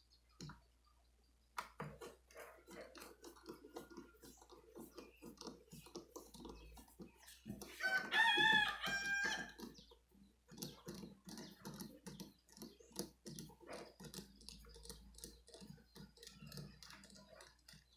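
A rooster crows once, loudly, about eight seconds in. Around it, a screwdriver is turning screws out of a wooden speaker cabinet's back panel, a steady run of small creaks and clicks.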